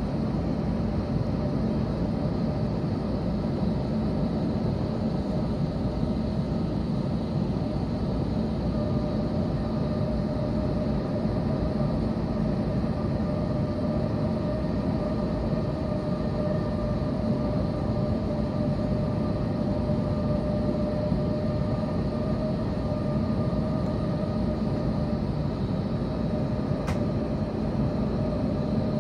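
Steady cabin noise of an Airbus A321 as it moves back from the gate: a low rumble with a constant whine over it.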